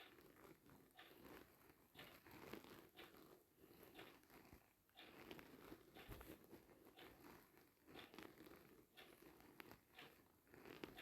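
Near silence, with faint, irregular crackles and rustles.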